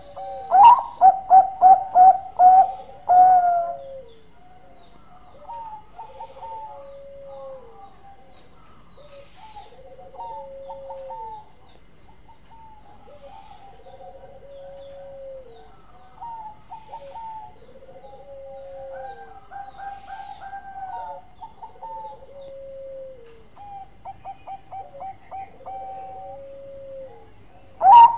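Zebra dove (perkutut) cooing. A loud run of rapid staccato coos, about four a second, fills the first three seconds or so. Softer repeated coo phrases follow, with a low rounded note every couple of seconds, and another loud run of coos starts at the very end.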